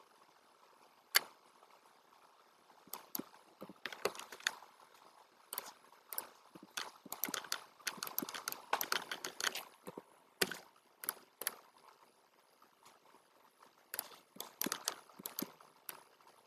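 Computer mouse and keyboard clicks, scattered singly and in quick clusters, the loudest a sharp click about a second in.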